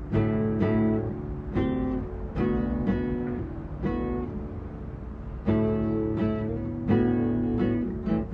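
Acoustic guitar strummed in slow chords, each struck chord left to ring before the next, with one chord held longer about halfway through.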